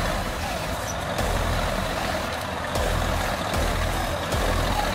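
Eight-wheeled off-road trial truck's diesel engine running under load at low speed as the truck crawls over a steep dirt slope, swelling slightly a few times.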